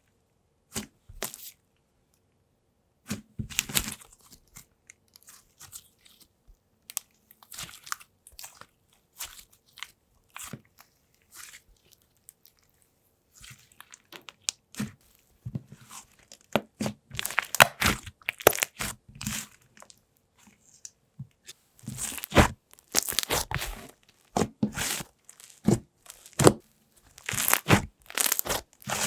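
Slime being stretched, folded and squeezed by hand, giving irregular clusters of small crackling bubble pops and sizzles with short quiet gaps. The pops come thickest and loudest in the second half.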